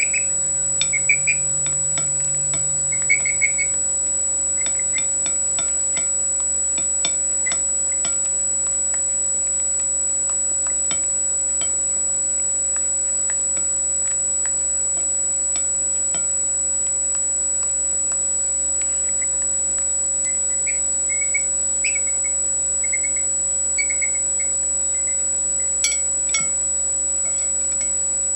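Chickens giving short soft clucks and chirps now and then, a run in the first few seconds and another near the end, with light pecking taps while eating. Under it runs a steady electrical hum.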